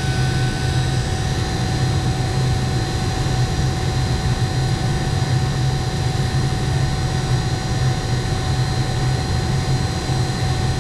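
Refrigeration vacuum pump running steadily, a low drone with faint steady whines above it, as it evacuates a mini-split's refrigerant line set.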